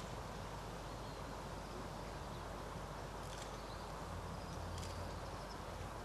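Steady outdoor background hiss, with a few faint, short high-pitched sounds around the middle.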